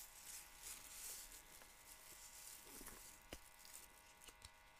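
Near silence: faint rustling of plastic-bag yarn with a few soft clicks in the second half, as strands are wound onto plastic kumihimo bobbins.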